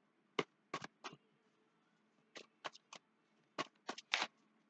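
A deck of tarot cards being shuffled by hand: short, sharp card flicks coming in three quick clusters, about seven in all.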